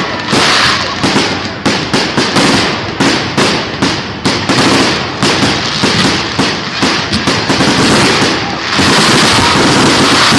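Fireworks display: rapid volleys of shell bursts, several sharp bangs a second. About three-quarters of the way in, the separate bangs merge into a steady, dense noise.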